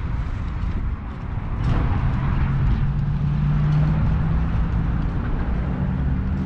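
Wind rumbling over the microphone, with a low steady hum coming in about a second and a half in.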